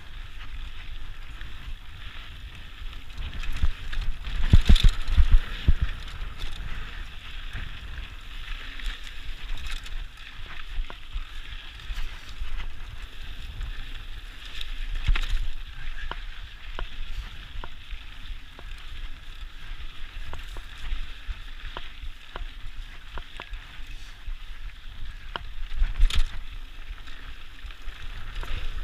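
Mountain bike rolling over a dry dirt singletrack, with steady wind on the microphone and tyre noise. Short rattles and clicks come from the bike over bumps, and thumps are loudest about five seconds in and again near the end.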